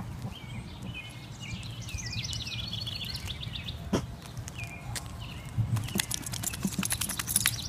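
Birds chirping in short, repeated phrases through the first half, over a steady low hum. Then a run of sharp clicks and taps, louder than the chirps, from about two-thirds of the way in.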